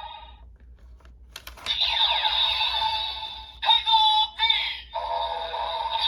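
Kamen Rider Gotchard toy transformation belt playing an electronic combo sound effect through its small speaker: a click about a second and a half in, then a synthesized jingle with a processed voice and a few sliding pitch sweeps.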